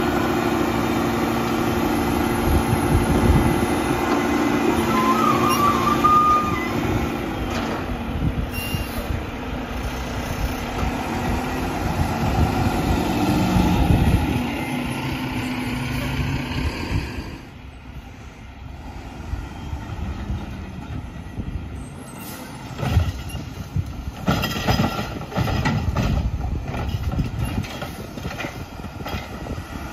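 Mack LR front-loader garbage truck running as it pulls past and drives off. The sound drops away sharply about two-thirds of the way through, followed by a series of knocks and clanks.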